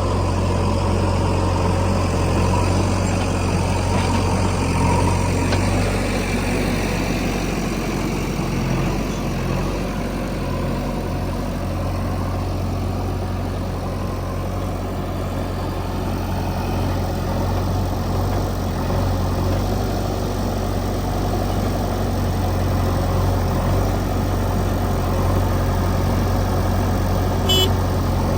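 Diesel engines of a backhoe loader and tractors running steadily, with a brief sharp high sound near the end.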